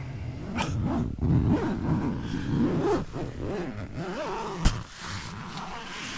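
Nylon tent fabric rustling and scraping against the camera as it is pushed along the tent wall toward the door. There is a sharp knock about two-thirds of the way through.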